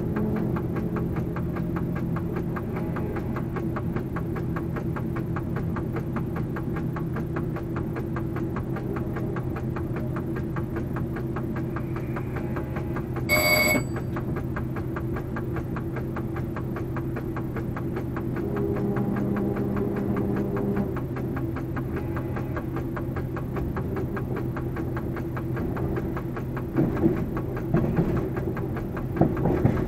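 Steady drone of a BB 67400-class diesel locomotive's engine, heard from inside the cab while running. About halfway through, one short high electronic beep sounds in the cab, and near the end the wheels knock several times over points.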